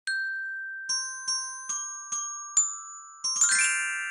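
A short intro jingle of bell-like struck notes: one ringing note, five more about half a second apart, then a quick run of notes near the end that rings on together.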